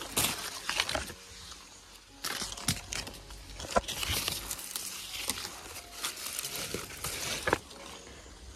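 Guava tree leaves and branches rustling and crackling as guavas are picked by hand, in several bursts with sharp snaps of twigs and stems.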